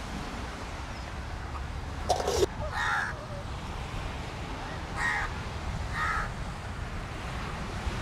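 Crows cawing: a loud rasping sound about two seconds in, then three short harsh calls over the next few seconds, over a steady low background rumble.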